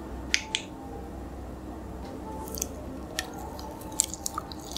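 Close-miked biting and chewing of a soft gummy candy (a Yupi gummy sandwich): squishy, sticky mouth sounds with a few sharp little clicks scattered through.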